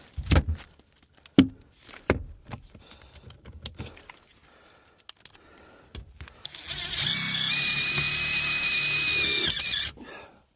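A few knocks and clicks of handling, then a power drill runs steadily for about three seconds with a high whine and stops suddenly, driving a fastener while mounting a whole house fan.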